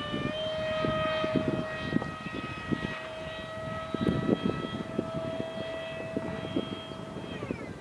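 A 90mm ducted-fan RC jet in flight, its fan giving a steady high whine that drops in pitch near the end, over an irregular low rumble.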